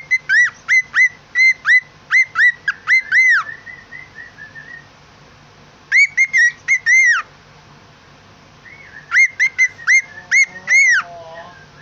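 Pet bird whistling in three quick bouts of short, squeaky, arched notes, about a dozen in the first bout, with softer chirps between the bouts.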